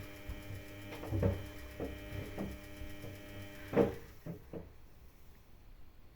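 Samsung washing machine running with a steady motor hum and several dull knocks from the drum; the hum cuts off with a louder knock about four seconds in, leaving only a couple of softer knocks.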